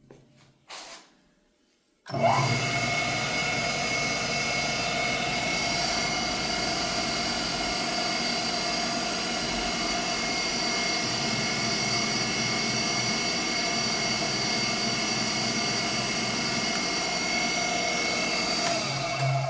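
Sanford 6x12 surface grinder switched on and running steadily, its half-horsepower single-phase motor spinning up about two seconds in with a short rising whine and then holding a constant hum and whine. It stops near the end.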